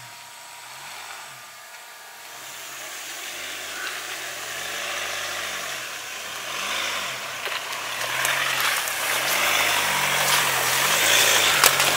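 Ford Ranger Wildtrak pickup driving, its engine note rising and falling, with a hiss that grows louder and a few sharp clicks near the end.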